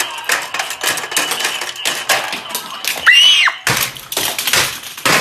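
Rapid plastic clicking and clattering from a toy fishing game. About three seconds in comes a short high squeal that rises and falls, followed by loud, harsh noise.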